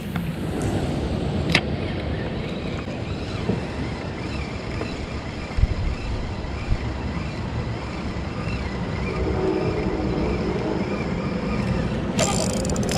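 Steady wind noise on the microphone with water lapping at a kayak hull. There is a sharp click about a second and a half in, and a louder, brighter rustle comes in near the end.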